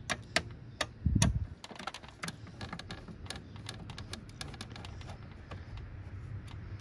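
Screwdriver turning a screw out of a metal bracket on a TV/VCR chassis: a run of small, irregular clicks and ticks of metal on metal, with a dull thump about a second in.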